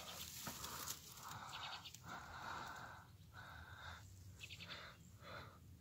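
A man breathing hard after exertion, a few faint, drawn-out breaths one after another.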